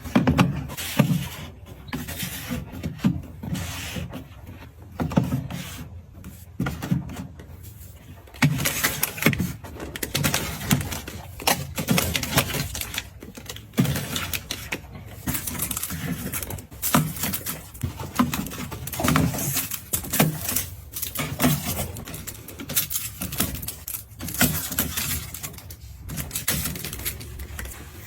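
Hands handling and setting down small items while organizing: a steady series of clicks, taps and knocks of plastic and glass containers, with rustling of packaging in between.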